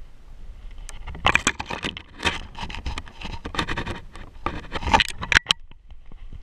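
Dry twigs and branches scraping and crackling against a dog and the camera on its back as it pushes through brush in snow, in a run of dense scratchy rustling from about a second in until shortly before the end.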